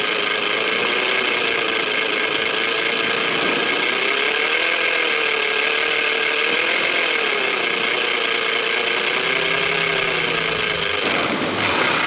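Avet big-game fishing reel screaming as a running shark pulls line off the spool, a steady high whine with a slowly wavering tone. It cuts off about eleven seconds in.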